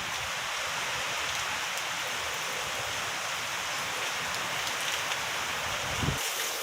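Heavy rain falling steadily and densely, with a brief low thump about six seconds in.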